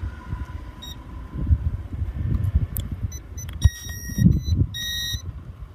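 Toy drone remote controllers beeping as they are paired with the Q39 and XT1 folding drones: a quick run of short and longer electronic beeps starting about three seconds in. Wind rumbles on the microphone throughout.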